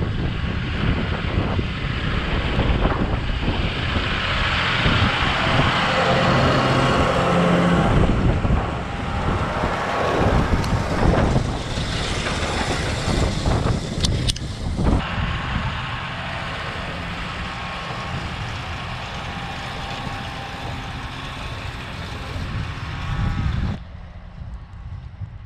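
John Deere tractor running steadily under load with wind noise over the microphone; the sound changes about 15 s in and drops off near the end.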